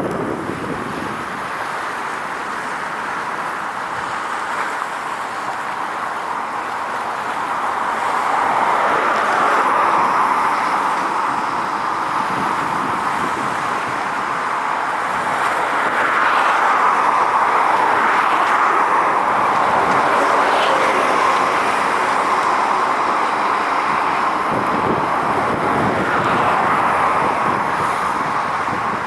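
Steady roar of passing road traffic, swelling and easing every few seconds as vehicles go by.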